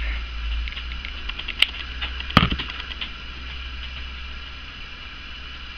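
Scissors handled while trimming ribbon: two sharp clicks, about a second and a half in and again just under a second later, over a steady low hum and hiss.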